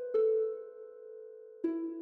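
Slow solo instrumental music: two single notes, plucked or struck about a second and a half apart, each ringing on as it fades.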